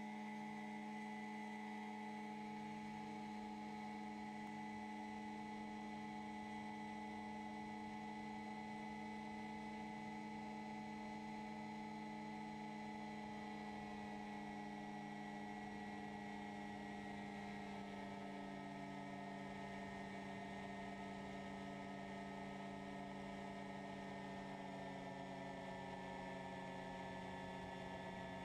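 Freshly overhauled Rotax 503 two-stroke twin engine of an ultralight running at high power through the takeoff roll and climb, a steady purring drone. Its pitch eases down slightly about two-thirds of the way through.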